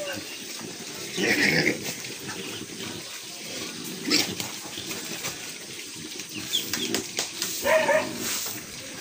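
Piglets feeding at a trough, with short squealing grunts: a loud one about a second in, one around four seconds, and one near the end, over steady snuffling and chewing.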